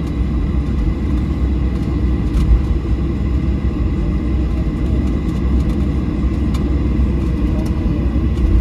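Steady low rumble inside the cabin of a Boeing 737-700 taxiing after landing, with faint steady high tones over it.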